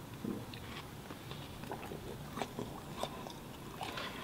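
A person eating watermelon: wet chewing and biting, with scattered small clicks and scrapes as a utensil digs into the flesh of a half melon.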